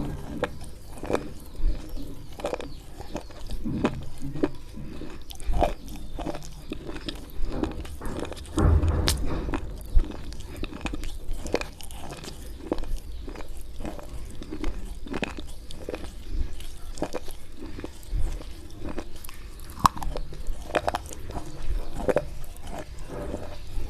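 Slate pencils coated in white khadi chalk paste being bitten and chewed close to the microphone: a run of sharp, irregular crunches and crackles.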